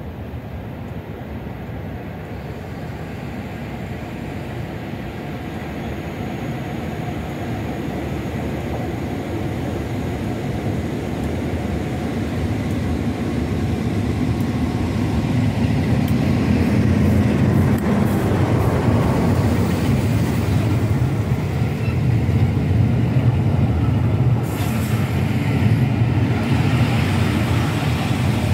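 Class 47 diesel locomotive hauling a train, growing steadily louder as it approaches over the first half, then passing close with the coaches' wheels running on the rails near the end.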